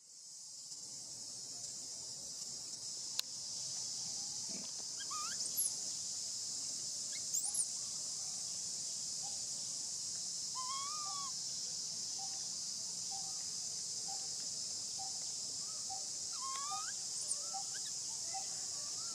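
Steady high-pitched insect chorus, fading in at the start, with a few short gliding chirps over it and a soft peep repeating about twice a second in the second half.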